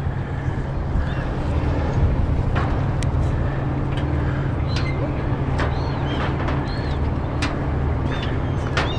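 Steady low engine drone, with short high bird chirps repeating several times in the second half and a few sharp clicks.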